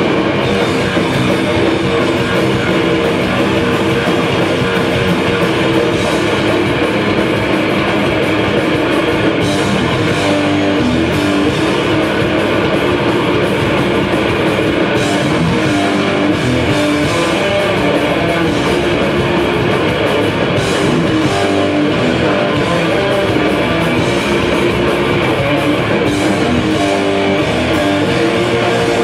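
A heavy metal band playing live and loud: electric guitars and bass over a drum kit, with no break.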